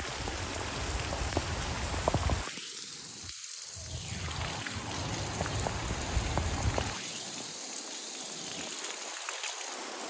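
Heavy hurricane rain falling steadily: a dense hiss with scattered ticks of single drops. A low rumble underneath cuts out about two and a half seconds in, comes back, and stops again about seven seconds in.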